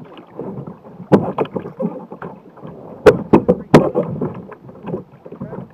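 Water sloshing against the plastic hull of a Jackson Cuda 14 sit-on-top kayak as a swimmer hauls himself aboard after a capsize. There is a hard knock on the hull about a second in, and a quick run of four sharp knocks about three seconds in, which are the loudest sounds.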